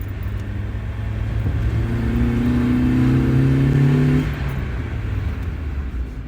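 Mazda Miata's four-cylinder engine pulling under throttle, its pitch climbing slowly for a couple of seconds before falling away about four seconds in as the throttle comes off, over a steady low rumble.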